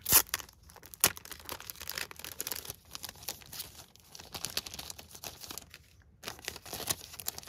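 Clear plastic packaging being opened and handled, crinkling and rustling. There is a sharp crack right at the start and another about a second in.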